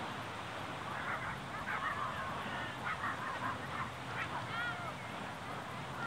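A single short animal call about four and a half seconds in, its pitch rising then falling, over steady beach background noise with faint distant voices earlier on.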